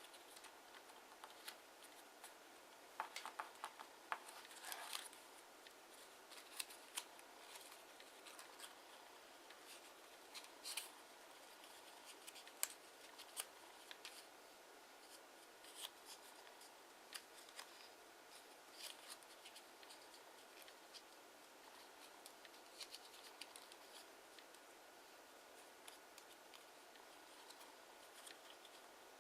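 Kraft origami paper being folded and creased by hand: scattered short crisp crinkles and taps, with a denser run of rustling about three to five seconds in.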